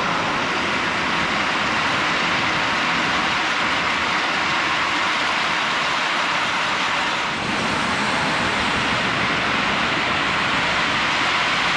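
O-scale 3-rail model freight train running past: a steady rolling rumble of many boxcar wheels on the track, dipping briefly about seven seconds in.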